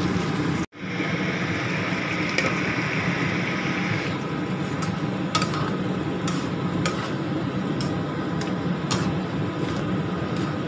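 Diced potatoes, carrots and meat sizzling in a wok as a spatula stirs them, with scattered light clicks of the spatula against the pan over a steady low hum. The sound drops out for an instant near the start, and the sizzle is stronger for the next few seconds.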